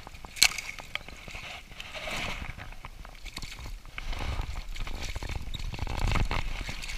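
Water splashing and sloshing as a hooked trout is brought in by hand at the lake surface. Sharp knocks and rubbing sound close to the microphone, with a louder low rumble from about halfway through.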